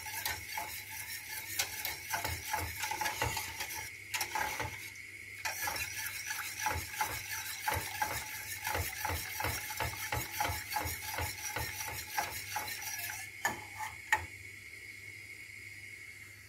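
Wire whisk beating a milk-and-flour cream as it cooks toward thickening in a stainless steel pot, clicking rapidly against the pot's sides and bottom. There is a short pause about four seconds in, and the whisking stops near the end.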